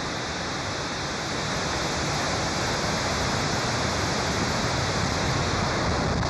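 SpaceX Falcon 9 rocket lifting off, its nine Merlin first-stage engines making a dense, steady rushing noise over a deep rumble that slowly grows louder.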